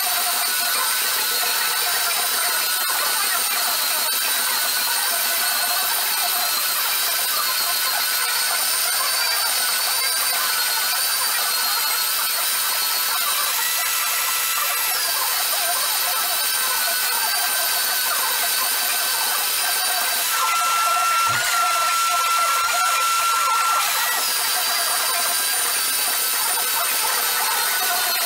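Electric sander running steadily on a walnut slab, a motor whine with several steady high tones. The pitch shifts briefly about halfway through and again for a few seconds about three-quarters through.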